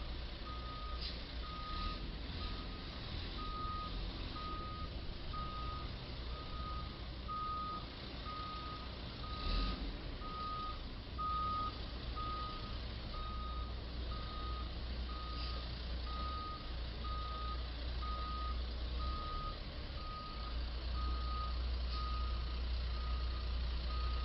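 Box truck's reversing alarm beeping steadily, about once a second, as the truck backs up, over a low rumble.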